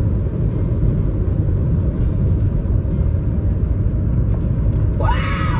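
Steady low road and engine rumble inside a moving car's cabin. Near the end, music with gliding tones comes in over it.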